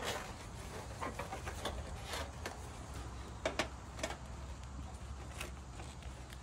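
Scattered light clicks and scrapes of a fascia bracket being fitted by gloved hands onto a 6-inch half-round copper gutter, its tabs worked over the gutter's beads. There are a handful of separate clicks over a low steady rumble.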